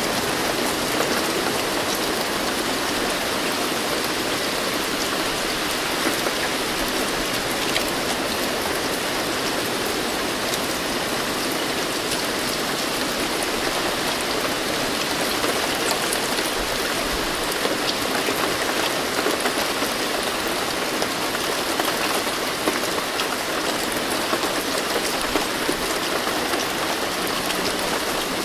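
Steady rain falling, a dense even hiss of drops with fine scattered patter.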